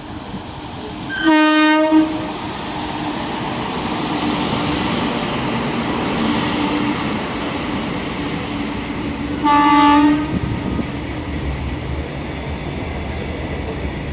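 Train horn sounded in two short blasts about eight seconds apart, over the steady rumble and wheel noise of a passing train.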